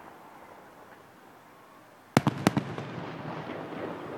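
Aerial fireworks bursting overhead: about two seconds in, a quick cluster of four sharp bangs, followed by a lingering rumble.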